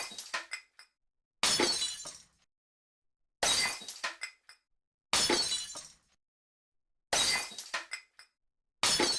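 Glass smashing sound effect repeated about every two seconds, five fresh crashes after the tail of one already sounding. Each is a sudden shattering crash that dies away within a second with a few small shards tinkling after it.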